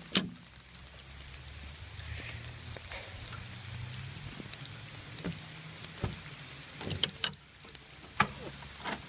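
Heavy rain falling steadily, with a few sharp clicks and knocks, the loudest cluster about seven seconds in.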